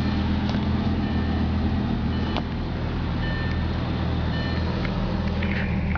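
Lamborghini Gallardo's V10 engine idling steadily, with a faint high beep sounding on and off.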